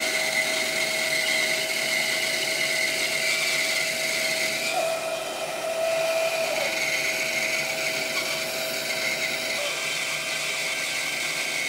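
Small benchtop bandsaw with a 4 TPI blade running and cutting through a block of wood about four inches thick: a steady whine over the noise of the cut, wavering briefly around five to six seconds in.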